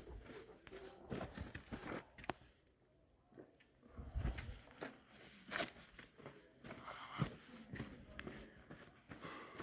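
Faint footsteps and scuffing on a dirt hiking trail, with scattered clicks and a brief low rumble about four seconds in.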